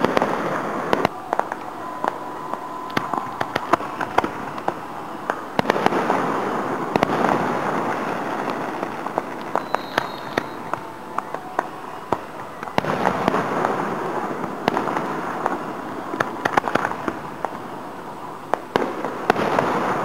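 Aerial fireworks display heard from about a quarter mile away: many sharp bangs of shells bursting, with crackling, coming in waves that swell and fade several times.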